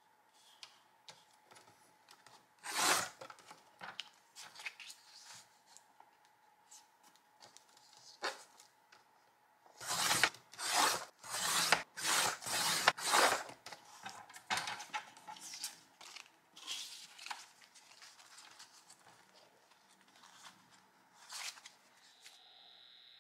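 Sliding-blade paper trimmer slicing painted paper into strips. Each push of the blade carriage along the rail makes a rasping cut. There is one cut early on, a quick run of about six cuts in the middle, then quieter rustling as the paper is shifted and handled, with one more cut near the end.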